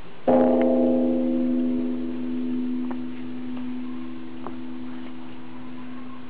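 Buddhist temple bell struck once just after the start; several tones ring together, the higher ones dying away first, leaving one steady low tone that slowly fades. A few faint ticks sound over the ringing.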